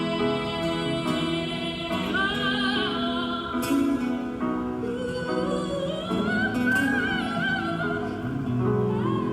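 A song performed live: a singer holding long notes with vibrato over sustained instrumental chords. The voice comes in about two seconds in.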